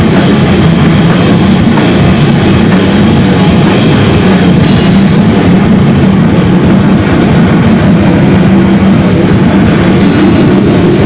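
Death-doom metal band playing live: distorted electric guitars and bass over a drum kit, loud and dense throughout.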